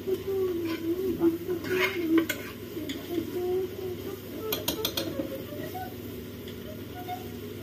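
A ladle stirring cooked mutton in the steel base of a pressure cooker, scraping around the pot, with a few sharp clinks of the ladle against the metal about two seconds in and again near five seconds.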